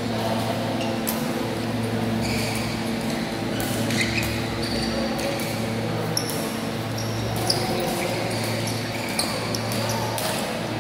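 Badminton rally in a large hall: several sharp racket strikes on the shuttlecock and short squeaks of court shoes on the floor, over a steady low hum.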